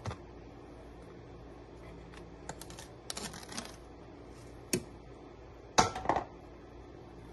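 Spoon clinking and scraping against a glass bowl while stirring a thick yogurt-and-cucumber chutney: a few scattered clicks, with a louder cluster of knocks near the end.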